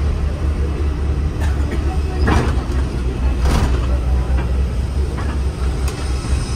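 Airport apron shuttle bus driving, heard from inside the cabin: a steady low engine and road rumble, with a couple of louder rattles a little over two and three and a half seconds in.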